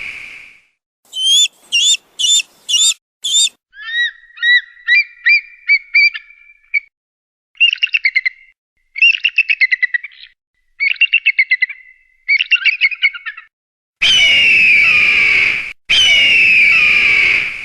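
Eagle calls: a few short rising whistles, then several runs of quick, high chattering calls, then two long, loud, harsh screams near the end, with dead silence between the separate call recordings.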